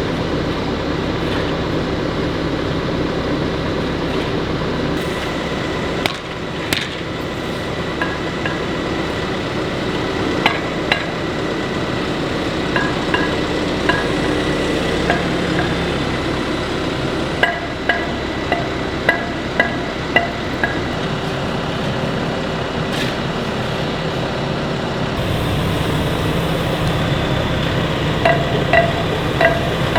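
Diesel engine of an SDLG EA780H wheeled excavator running steadily, with repeated short metallic clinks and clanks that ring briefly, coming in quick runs of several at a time.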